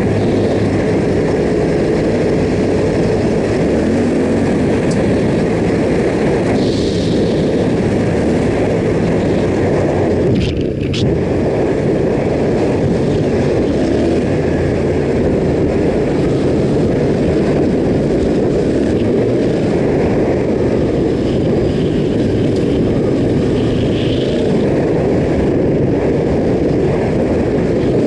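Yamaha Ténéré 700's parallel-twin engine running steadily while the bike is ridden, under a steady rushing noise, with a brief sharp knock about ten seconds in.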